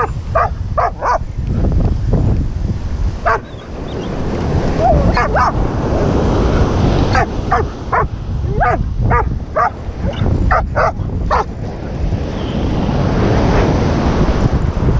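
A dog barking repeatedly in short runs of two to four barks, over the steady wash of surf breaking on the beach.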